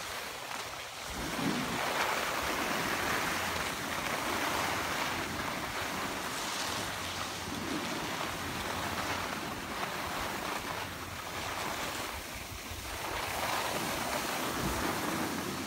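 Skis and a snowboard sliding and scraping over packed snow, a steady hiss that swells and fades in surges with the turns, with wind buffeting the microphone.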